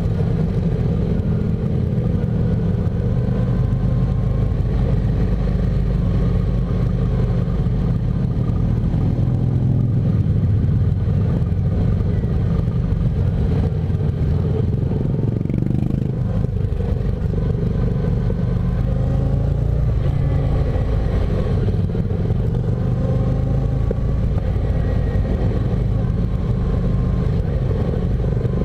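Motorcycle engine running steadily at low speed, heard from on the bike, with other motorcycles riding close around it. The engine note rises and falls a little in places.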